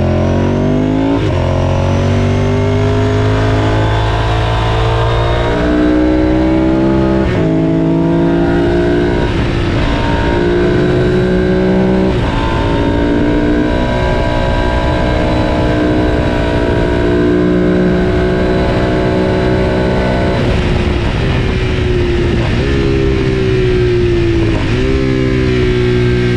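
Ducati superbike's 90-degree V-twin engine heard on board, pulling up through the revs and dropping in pitch at each of several gear changes as the bike laps the circuit, with wind rush over the bike.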